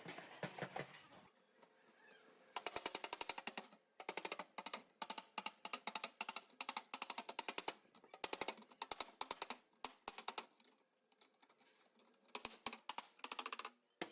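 Body hammer tapping out the sheet metal of a car's rear quarter panel: rapid sharp taps, several a second, in bursts with short pauses.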